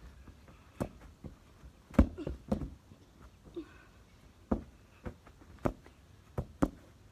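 A football being kicked and touched around: about nine sharp thuds at uneven intervals, the loudest about two seconds in.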